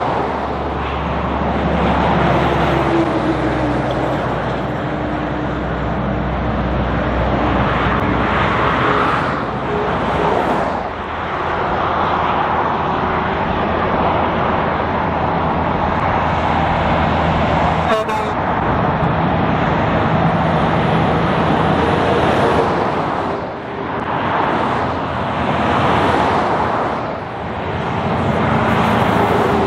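Heavy diesel trucks and a ute driving past on a highway, one after another. A steady low engine drone and tyre noise swell and fade as each vehicle goes by, with a single sharp click partway through.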